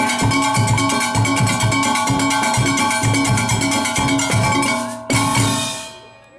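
Steelband engine room: brake-drum irons struck with metal beaters over a drum kit and bass drum, playing a fast, driving rhythm with a steady metallic ring. About five seconds in the playing breaks off, and one last hit rings out and fades away.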